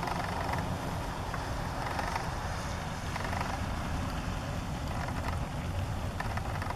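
Steady outdoor background noise: a low rumble with an even hiss above it and a few faint ticks.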